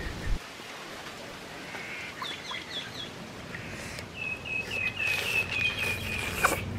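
A bird chirping in short, quick repeated notes: a run of four a little after two seconds in, then a longer, faster series from about four seconds in. A single sharp click near the end.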